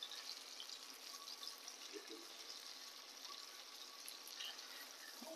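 Fish frying in oil in a pan after being turned: a faint, steady sizzle.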